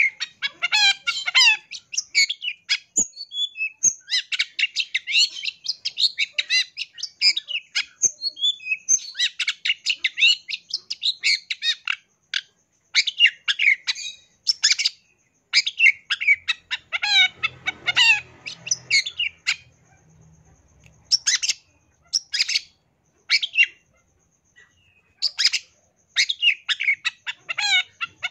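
Long-tailed shrike (cendet) singing a fast, varied song of chattering and whistled notes laced with mimicked calls, in bursts of a few seconds separated by short pauses.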